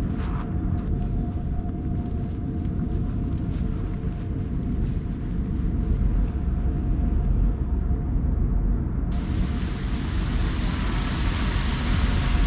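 Steady low rumble of wind on the microphone, with a faint steady hum. About nine seconds in, the hiss of shallow water running down a stone-lined drainage channel comes in.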